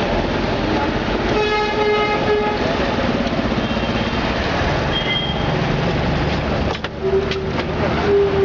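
Busy road traffic with vehicle horns honking: one horn blast about a second and a half in lasting about a second, then two more short honks near the end.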